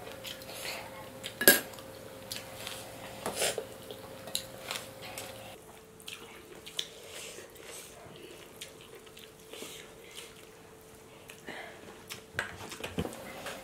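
Scattered clinks and taps of a steel spoon against stainless steel plates and bowls, the loudest clink about one and a half seconds in.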